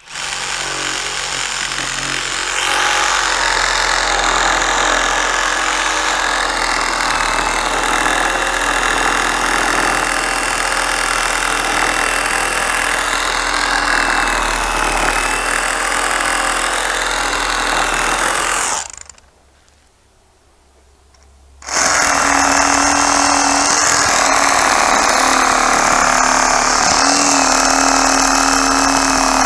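Ryobi compact one-handed cordless reciprocating saw cutting a thick, fresh pine limb with a pruning blade. The branch is over the 3 inches the compact saw is normally used for. The saw runs steadily, stops for about two and a half seconds around two-thirds of the way through, then starts again and keeps cutting.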